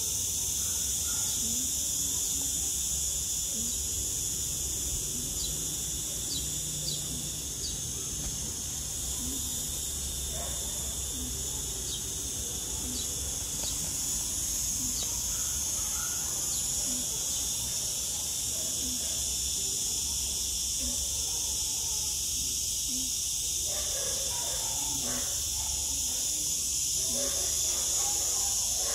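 A steady high-pitched insect chorus that runs without a break, over a low background rumble.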